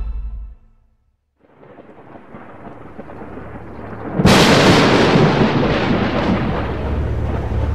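Background music fades to a brief silence. Then a rumbling noise swells, and about four seconds in a loud crash of noise hits and carries on: a dramatic storm-like sound effect on the edited soundtrack.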